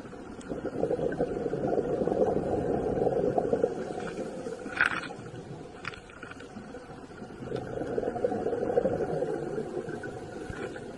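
Scuba diver's exhaled bubbles rumbling out of the regulator underwater: two long exhalations a few seconds apart, with a brief higher hiss between them.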